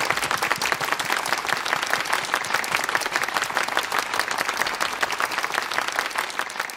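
Many people applauding steadily, a dense patter of hand claps from the performers and audience.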